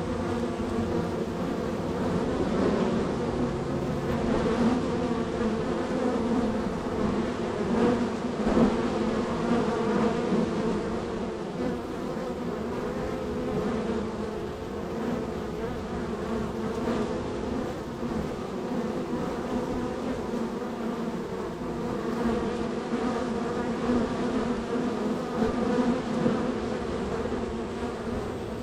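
Honey bees buzzing in a steady, dense hum at a busy hive entrance as they fly in and out, the drone rising and falling a little as bees pass close by.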